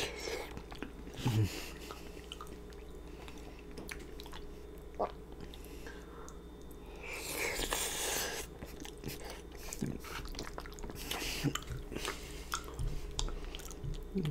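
Close-miked chewing of a mouthful of lasagna, with wet, smacking mouth clicks. About halfway through and again a few seconds later come breathy huffs through an open mouth, cooling a mouthful that is too hot.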